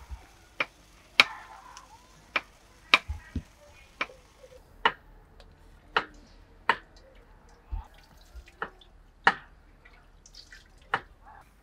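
Kitchen knife chopping baby corn on a wooden chopping board: a series of sharp knocks at an uneven pace, roughly one a second.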